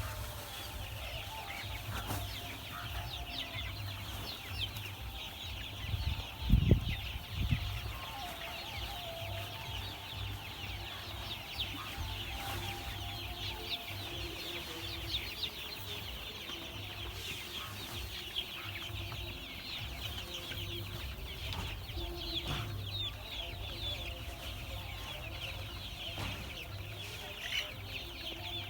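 A flock of month-old chicks peeping continuously in many short high calls, with lower clucking calls now and then. A loud low thump about six seconds in.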